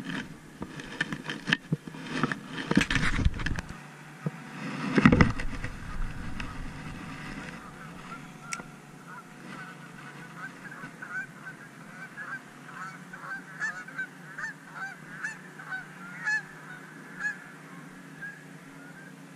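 Knocks and rustling from handling the fish and tackle, with a loud thump about five seconds in, then geese honking over and over from about nine seconds on.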